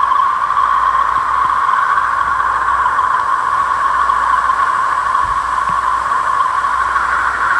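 A 'planet sound' space recording: an even, steady hiss-like drone concentrated in the upper middle range, with no beat or melody.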